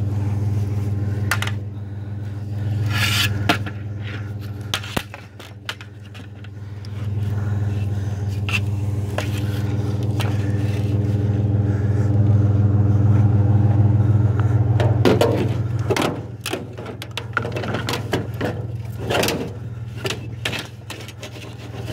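An engine idling steadily, with scattered scrapes and knocks as a window screen frame is handled and set onto a load of scrap.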